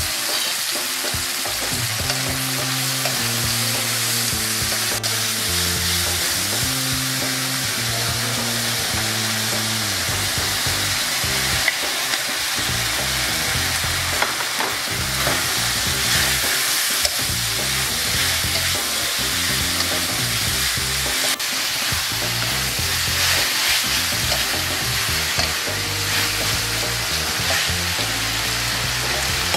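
Pork strips and green bell pepper sizzling steadily in a hot aluminium wok, stirred with a wooden spatula, with a few sharp knocks of the spatula against the pan.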